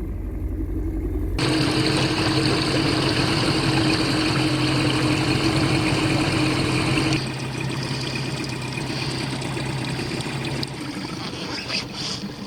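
A vehicle engine running with a steady low hum over a wash of water noise, typical of moving through floodwater. The sound changes abruptly about a second in, about seven seconds in and again near the end.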